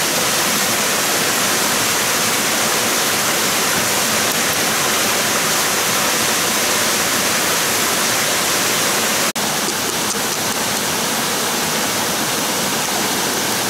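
Steady, loud rushing of water, even and unbroken except for a brief dropout about nine seconds in.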